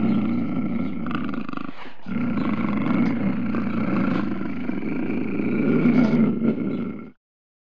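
A low, continuous roar that breaks off briefly about two seconds in, then runs on and cuts off suddenly near the end.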